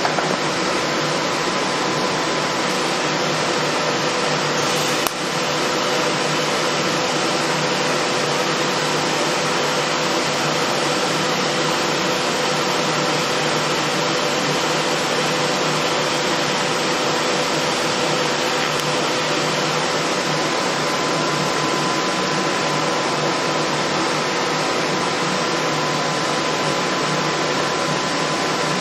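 Steady, even hiss with a faint steady hum, unchanged while a TIG arc is run on scrap steel, with a brief dip about five seconds in.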